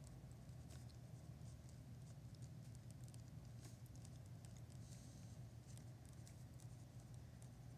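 Faint scratching and ticking of a pen writing on a paper worksheet, over a low steady hum.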